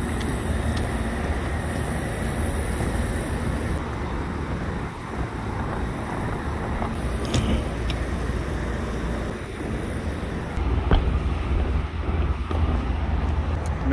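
Wind buffeting the microphone over a steady low rumble of outdoor background noise, with a few faint clicks.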